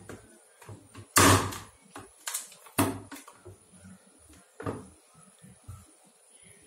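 Several sharp knocks and clatters of metal kitchenware as pathiri dough is pressed flat, the loudest a longer clatter about a second in, followed by three shorter knocks.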